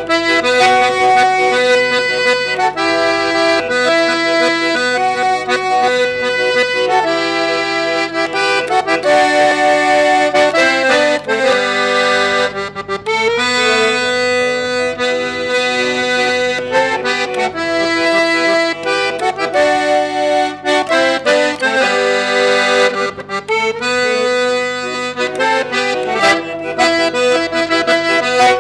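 Button accordion playing a chamamé tune, sustained reedy chords and melody notes changing steadily throughout.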